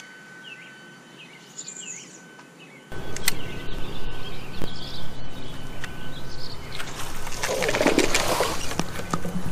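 Birds chirping faintly, then a steadier outdoor rush from about three seconds in. Near the end comes a splash at the water's surface as a largemouth bass thrashes beside the boat.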